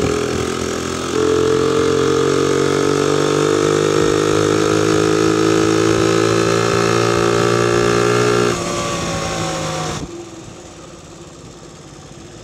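Honda PC50 moped's small single-cylinder engine running under throttle, its note rising slowly as it pulls along. About eight and a half seconds in the throttle is closed and the engine note falls away, much quieter after about ten seconds.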